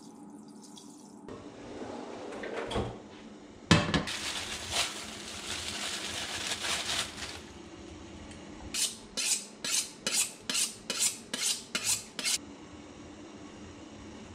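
Kitchen handling: a single sharp clatter of cookware and a few seconds of rustling handling, then about ten evenly spaced knife strokes on a bamboo cutting board, roughly three a second, as pancetta is sliced.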